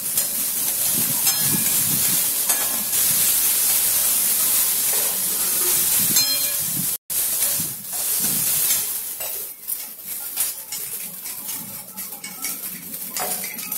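Chopped vegetables sizzling in a hot wok while a perforated metal spatula stirs and tosses them, scraping and clinking against the pan. The sound cuts out for a moment about halfway, then goes on somewhat quieter.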